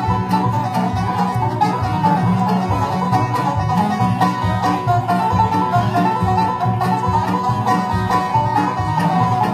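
Bluegrass band playing an instrumental, with banjo picking over a steady bass beat.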